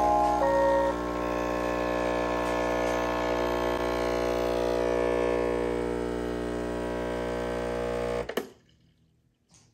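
Breville Barista Express espresso machine's vibratory pump humming steadily while pulling a shot, then cutting off abruptly about eight seconds in. A little background music is heard in the first second.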